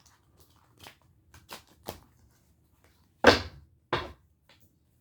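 A deck of tarot cards being handled: a run of light clicks and taps, then two louder knocks about three and four seconds in, like the deck being tapped or cards slapped down on the table.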